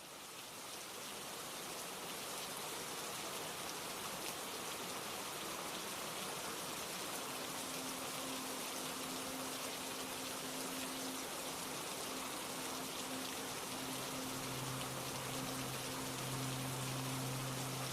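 Steady rain falling, fading in at the start. A low steady tone comes in about halfway through, and a deeper one joins near the end.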